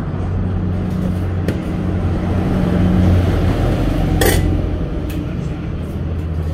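A steady low mechanical hum under a general background noise, with one sharp clink about four seconds in.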